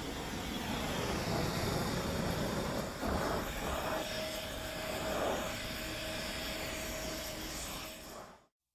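Steady rushing hiss of an oxy-fuel torch flame heating a steel pipe, with a faint steady whine through the middle; it fades out shortly before the end.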